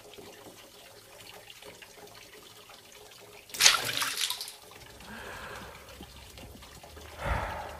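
Bathroom tap running, a faint steady hiss of water, with a loud sudden whoosh about three and a half seconds in. A breathy exhale follows near the end.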